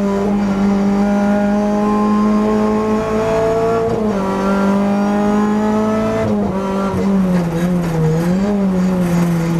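Renault Clio Cup race car's engine heard from inside the cockpit, pulling hard with its pitch slowly rising, then stepping down about four seconds in at a gear change. Over the last few seconds the note wavers and falls as the car comes off the throttle.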